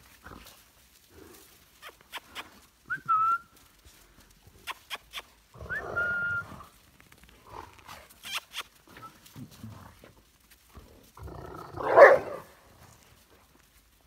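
Briard puppies playing with an adult Briard: brief high squeaks about 3 and 6 seconds in, scattered small knocks and scuffles, and a louder, rough dog vocalization near the end.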